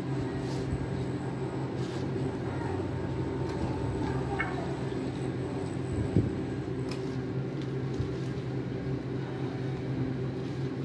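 A steady low mechanical hum, with a few faint clicks and one sharp knock about six seconds in.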